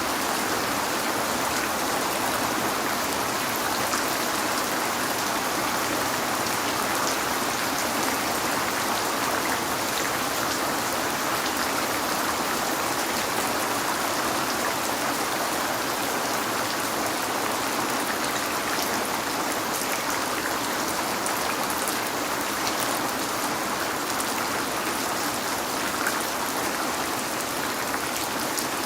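Steady heavy rain falling on a window, an even hiss with scattered faint drop ticks.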